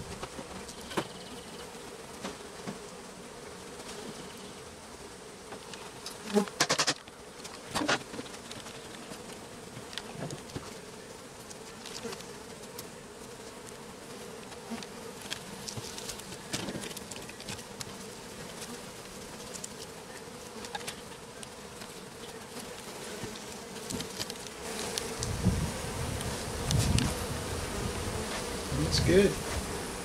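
Honeybees buzzing around an opened colony's comb, a steady hum of many bees. Scattered clicks and knocks of comb and frames being handled break through it, louder a few times about six to eight seconds in and again near the end.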